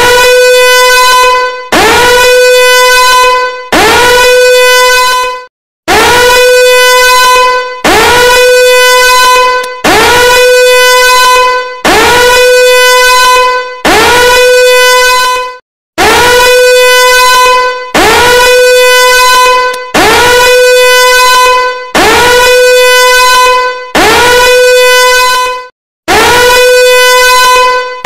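Danger alarm sound effect: a loud horn-like alarm tone that sweeps quickly up in pitch at the start of each blast, then holds steady. The blasts repeat about every two seconds, with a short silent break after a few of them.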